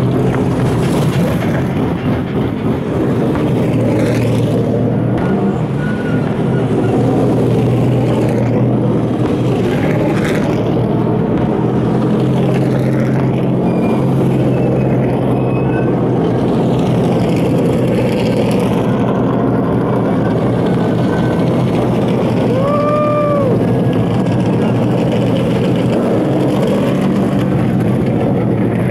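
NASCAR truck-series race trucks' V8 engines running loud and steady as the trucks roll slowly past on pit road.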